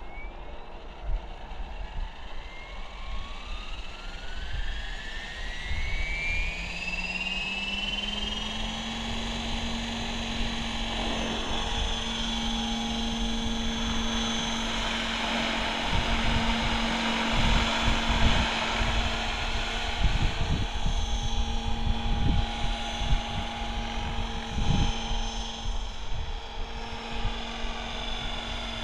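Electric Mikado Logo 700 RC helicopter spooling up: its motor-and-rotor whine rises steadily in pitch over about six seconds, then holds at a steady pitch as the helicopter flies, with irregular low thumps underneath.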